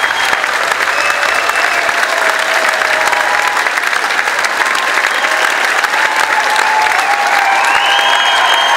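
Large audience applauding steadily, with a few voices calling out above the clapping.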